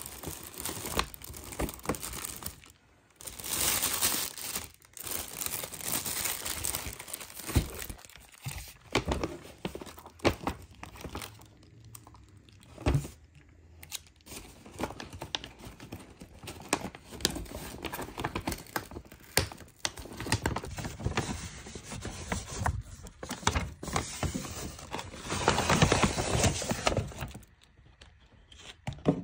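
Paper and plastic takeout bags rustling and crinkling as they are handled and opened, with a few sharp knocks in between.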